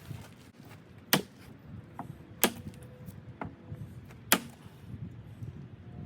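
Three sharp knocks spaced a second or two apart, with a few fainter taps between them; the second knock is followed by a faint, brief ring.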